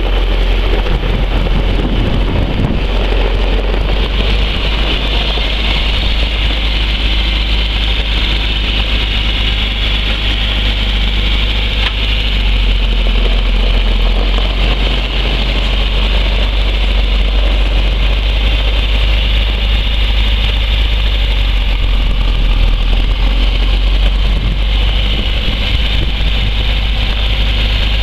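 John Deere 4520's six-cylinder turbo diesel engine idling steadily.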